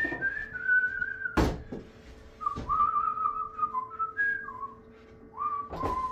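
A person whistling a meandering tune, one clear note at a time, with a loud knock about a second and a half in and a softer one a second later.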